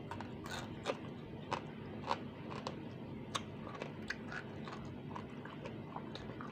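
Close-miked chewing and biting of fried fish: irregular crisp crunches and wet mouth clicks, a few louder than the rest.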